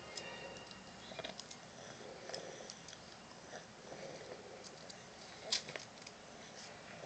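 A chewing-gum wrapper crinkling in short, scattered crackles as a toddler's fingers pick it open, with one sharper crackle about five and a half seconds in.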